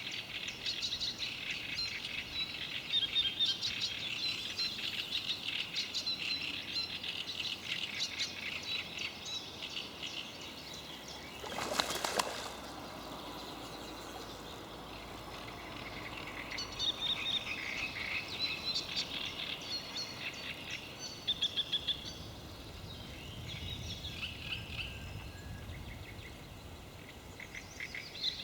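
Several songbirds singing and chirping at once in rapid trills. About twelve seconds in there is a brief rushing sound, about a second long.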